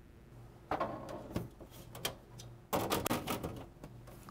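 Sheet-metal side panel of a PC tower case being fitted and slid shut: two bouts of metal scraping with sharp clicks, about a second in and again near three seconds in.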